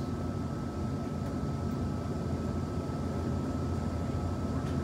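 Interior noise of a Taiwan Railway push-pull Tze-Chiang Express passenger car: a steady low rumble and hum with a thin constant whine above it.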